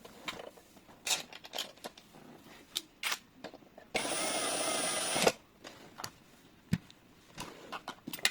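Clicks and knocks of metal lock parts being handled. About four seconds in, a small electric motor, likely a power screwdriver or drill, whirs steadily with a high whine for about a second and a half.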